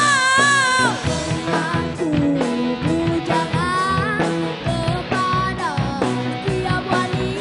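Live rock band playing: a singer holds a long note with vibrato, then sings shorter phrases over electric bass guitar, guitar and drum kit.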